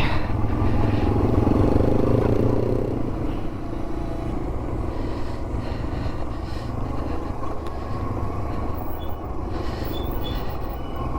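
Yamaha TW200's single-cylinder engine running steadily under way on the motorcycle, a little louder in the first few seconds.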